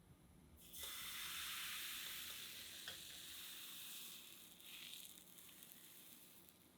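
Thin crepe batter sizzling in a hot pan. The sizzle starts suddenly about a second in and dies away toward the end.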